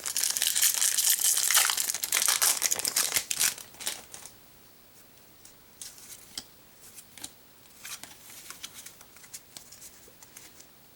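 Foil Pokémon booster pack being torn open and crinkled, loud and continuous for about four seconds, then only light crinkles and clicks as the cards are handled.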